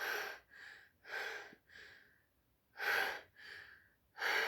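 A person's breathy gasps during a sneezing fit: about four quick breaths in and out, each a sharper gasp followed by a softer one.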